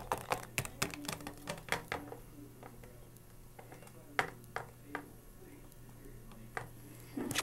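Light irregular clicks and taps from handling a small plastic toy figure against a hard counter, many in the first two seconds and then a few scattered ones, over a faint steady hum.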